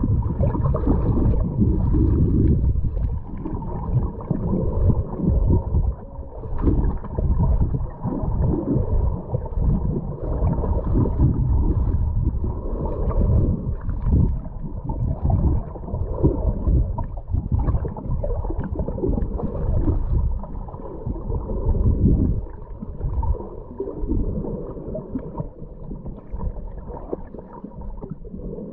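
Underwater sound picked up by a camera in a waterproof housing: a muffled, low churning water noise that swells and fades irregularly as the swimmer moves through the water.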